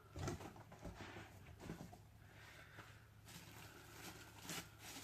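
Faint handling noise of a boxed PC case in its styrofoam packing: soft rustling with a few light knocks, the loudest just after the start.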